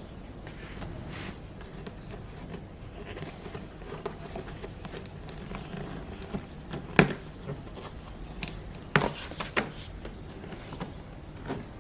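Handling noise from a bag being examined: scattered light clicks and knocks over a steady low hum, the sharpest about seven and nine seconds in.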